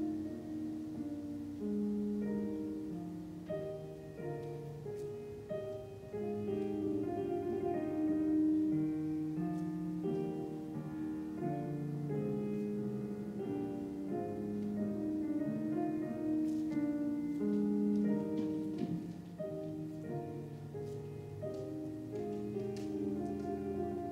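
Slow classical piano music, held chords and a melody line changing about once a second: ballet class accompaniment for port de bras.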